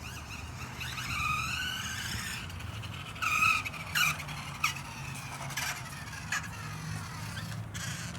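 Radio-controlled toy car running, its motor whine rising and falling in pitch, followed by a few short squeaks and clicks.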